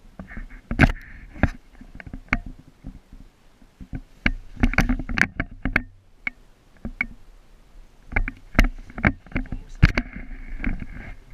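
A run of irregular sharp clicks and knocks, bunched in two clusters, with a faint hiss behind them.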